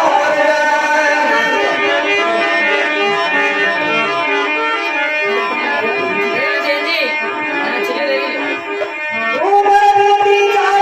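Instrumental bhajan music: a harmonium plays a melody over a hand drum, and settles into a steady held chord about nine seconds in.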